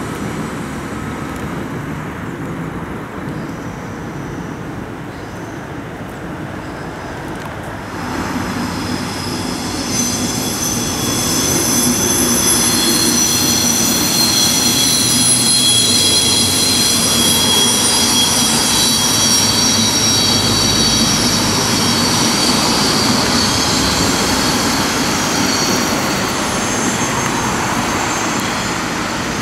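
Red double-deck regional train running over an elevated concrete viaduct, with a low rumble and wheel squeal in several steady, high-pitched tones. It grows louder about eight seconds in and eases off near the end.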